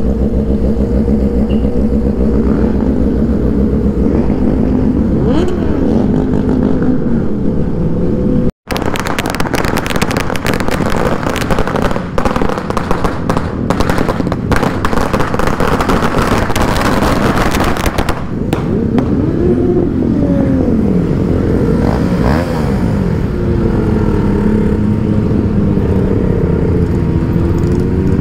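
Several motorcycle engines running, their revs rising and falling. About nine seconds in, a dense, rapid crackle of firecrackers goes off for roughly nine seconds. The motorcycle engines then rev and idle again.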